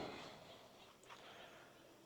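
Near silence, with one faint brief sound about a second in.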